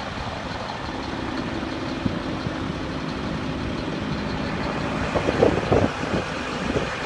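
Steady engine noise from running motors, with a few irregular louder rumbles about five to six seconds in.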